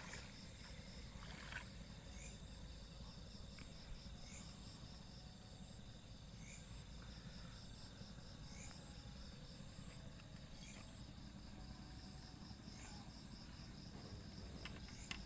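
Night insect chorus of crickets and other insects: a steady high trill and a rapid pulsing trill, with a short chirp repeating about every two seconds. A low steady rumble runs underneath.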